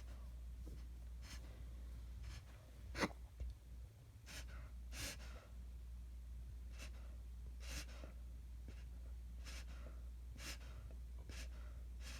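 Dog reverse sneezing: a series of short, forceful noisy inhalations through the nose, roughly one a second and irregular, with the loudest about three seconds in.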